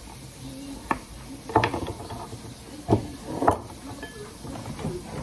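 Knife cutting an English cucumber on a wooden cutting board, with cucumber slices being put into a glass bowl: a handful of separate sharp knocks, unevenly spaced.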